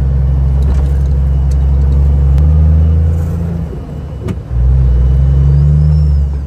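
Caterpillar diesel engine of a 2001 Freightliner Argosy cab-over semi truck pulling under acceleration. The engine note drops away briefly about four seconds in, as at a gear change, then comes back and climbs again.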